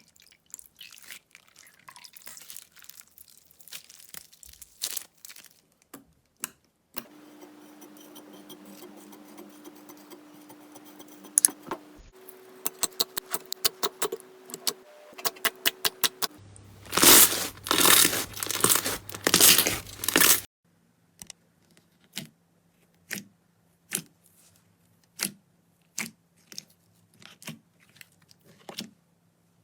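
Slime being poked, pressed and squished, giving crisp clicks and crackles: single pops at first, a quick run of even clicks, a dense loud stretch of crackling about halfway through, then single clicks about once a second.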